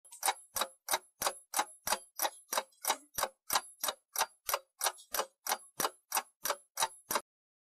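Clock ticking steadily, about three ticks a second, stopping abruptly about seven seconds in.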